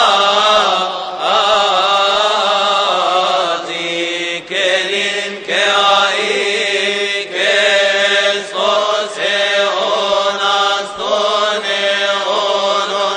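A large group of men chanting a Coptic liturgical hymn together. They sing one long, melismatic line with sliding pitch and held notes, broken only by brief pauses for breath.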